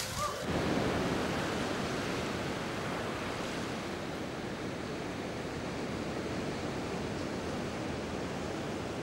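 Ocean surf: heavy waves breaking in a steady rushing wash, a little louder in the first second or two.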